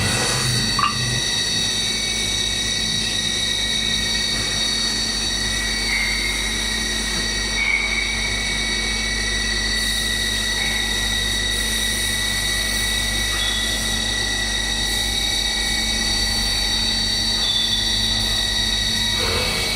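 CNC machine's spindle running as it mills polyethylene plastic: a steady high whine of several tones over a low hum, with brief slight shifts in pitch.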